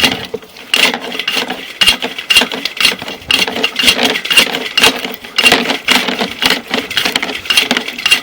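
Sewer inspection camera's push cable and reel rattling and clicking in quick irregular strokes as the cable is fed through the drain pipe.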